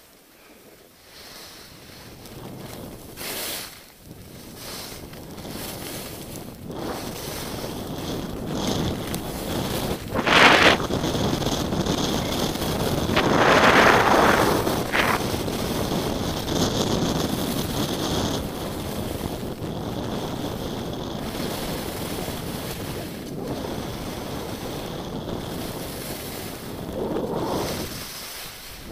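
Wind rushing over a skier's camera microphone at speed down a groomed piste, mixed with the hiss of skis sliding on packed snow. It builds over the first few seconds and is loudest about ten to fifteen seconds in, with a few short, sharp surges.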